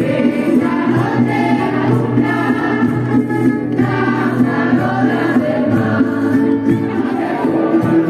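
A group of voices singing together, choir-like, over instrumental music.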